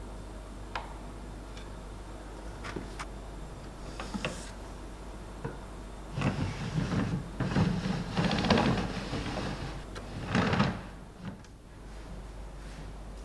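A few light clicks from a hand screwdriver working in an oak cabinet panel. Then, about six seconds in, a louder rattling wooden sliding sound runs for about four seconds, with a last short burst before it stops.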